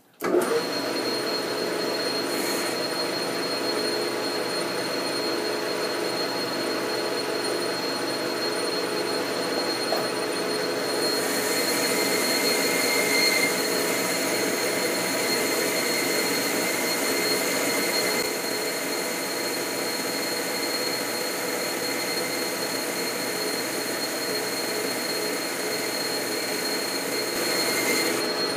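Metal lathe running at speed while a boring bar takes a finishing cut inside a hub. From about 11 seconds in the cutting noise gets louder and higher, with a faint high ringing from the tool, until the cut stops near the end.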